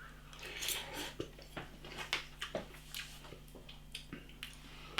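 Quiet eating sounds of instant noodles from a pot: chewing, with many small irregular clicks and taps of a utensil against the pot.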